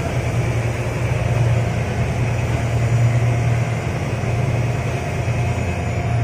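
A fishing boat's engine running steadily with a deep, even hum.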